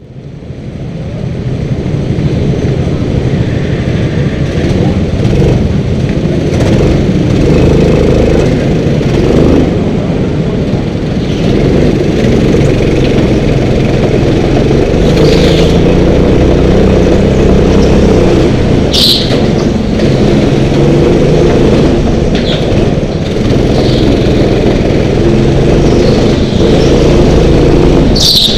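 Indoor rental go-kart engines running hard close to the microphone, revving as the karts pull out of the pit lane and lap the track. The sound fades in at the start. Several brief high-pitched tyre squeals come from the karts sliding on the smooth concrete floor.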